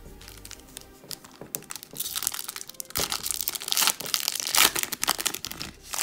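Foil wrapper of a Donruss basketball card pack crinkling and tearing as it is ripped open by hand, loudest from about two seconds in.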